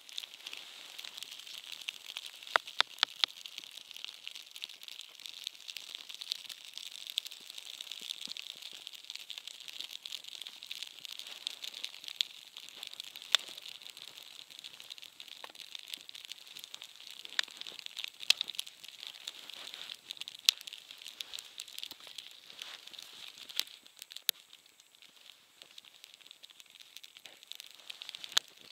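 Wood campfire of dead branches and a log crackling, with a steady hiss and scattered sharp pops, a quick cluster of them about three seconds in.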